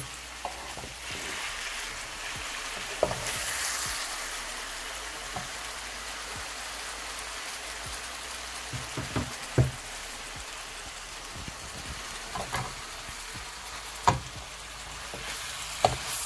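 Chicken pieces with onions, leeks and carrots sizzling gently in a non-stick pan on low heat, in their own juices. A few short sharp knocks come now and then, the loudest about 14 s in. Near the end a wooden spatula stirs the pan.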